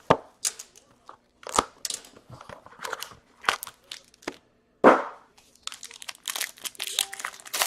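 A cardboard hockey card box and its wrapped packs being torn open and handled: irregular crinkling and tearing, with one louder rip about five seconds in.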